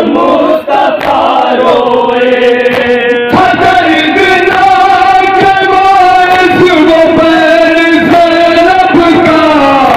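Men's voices reciting a noha, a Shia Muharram lament, in a chanted melody through microphones and loudspeakers. About three seconds in, the singing settles into long held notes.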